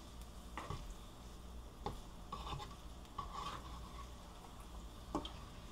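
Pesto pasta being stirred and tossed in a nonstick frying pan with a spoon, the spoon scraping and clacking against the pan a few times while the pasta fries lightly as it toasts.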